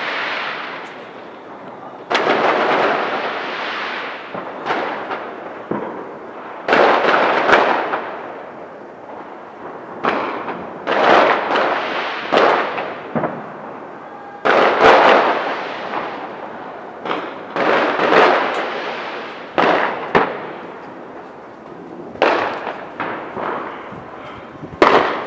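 Fireworks going off: a string of loud bangs at irregular intervals, some close together, each dying away over about a second.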